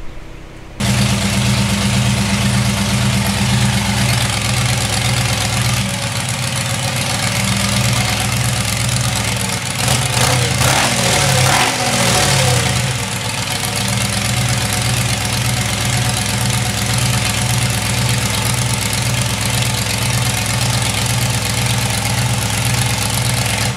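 Supercharged 6.6 L Duramax diesel V8 in a top-fuel dragster running at idle with a loud, even, pulsing beat. Its pitch wavers up and down for a few seconds in the middle, then it settles back to idle.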